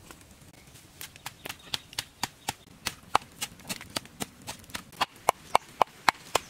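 Wooden pestle pounding garlic and chili in a wooden mortar: a steady run of sharp knocks, about four a second, starting about a second in.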